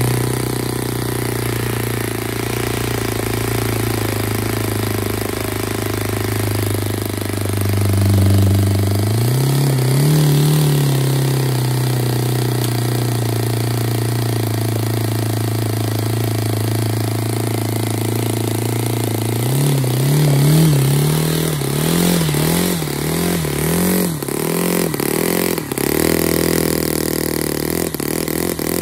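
Saito FA-50 four-stroke single-cylinder glow engine running on a test stand, turning its propeller. Its speed drops briefly and then picks up about nine seconds in. From about twenty seconds in, the speed wavers rapidly up and down, with uneven knocks.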